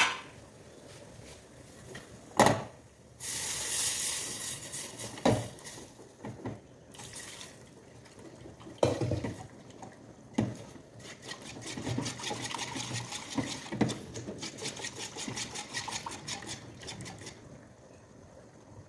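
Kitchen sounds: liquid pouring and running, with several sharp knocks of a utensil or dish against cookware and a stretch of quick, rapid scraping or stirring.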